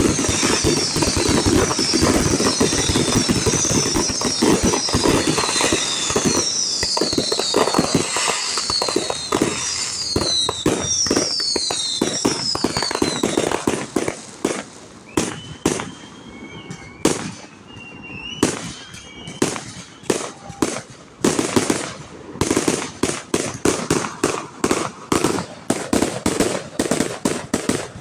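Aerial fireworks barrage: a dense run of bangs and crackling threaded with many short falling whistles. About halfway through it thins to scattered bangs, then a rapid string of sharp reports, several a second, runs to the end.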